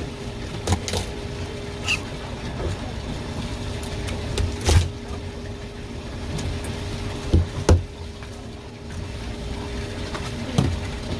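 A kitchen knife knocking and scraping on a cutting board while a sea bass is filleted: about half a dozen sharp knocks, two of them close together past the middle, over a steady background hum.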